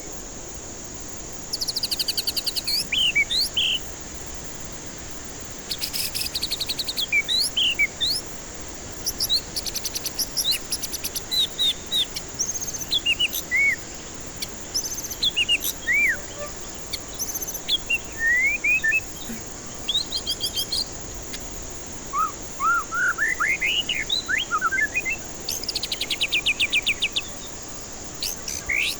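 White-rumped shama (murai batu) singing: a varied run of clear whistled notes sliding up and down, broken several times by fast rattling, chattering trills, with a quick rising series of notes a little past the middle.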